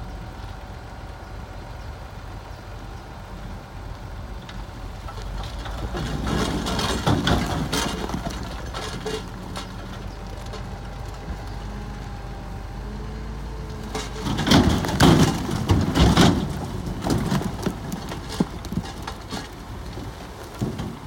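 Komatsu D65E bulldozer's diesel engine running steadily under work, with two spells of clattering and knocking from the machine pushing rock and soil, about six seconds in and again, loudest, about fourteen to seventeen seconds in.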